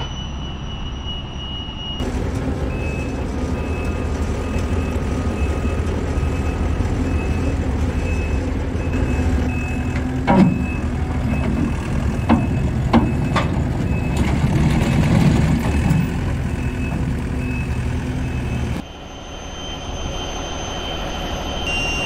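Takeuchi TL240 compact track loader's diesel engine running, with its backup alarm beeping steadily and a few sharp clanks near the middle.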